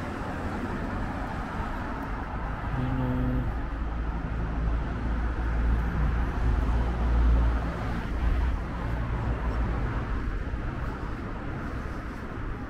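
City street traffic: a steady low rumble of vehicles that swells as one passes close, loudest about seven seconds in, with a brief engine hum about three seconds in.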